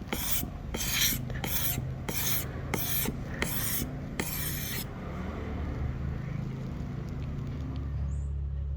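Hand file scraping across ebony wood in even push strokes, about two a second, which stop about five seconds in. A low steady hum continues underneath.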